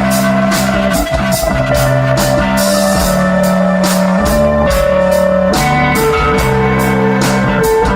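Live rock band playing an instrumental passage: electric guitar and bass holding long notes over drums, with cymbal strokes keeping a steady beat of about three a second. The bass shifts to a new note about a second and a half in, and again near the middle and about three-quarters through.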